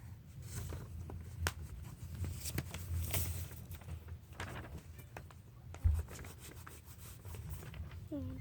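Pencil drawing on paper: a run of short scratchy strokes and rubs, with a dull thump about six seconds in.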